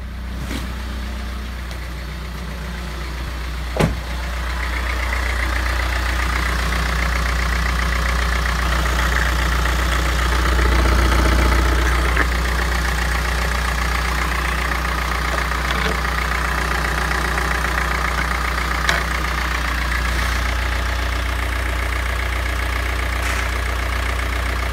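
Mitsubishi Space Star's F9Q 1.9-litre turbodiesel idling steadily. It grows louder and brighter about four and a half seconds in, with a single sharp knock just before.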